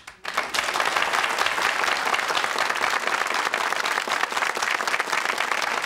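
Studio audience applauding: many people clapping at once, starting suddenly and keeping up steadily.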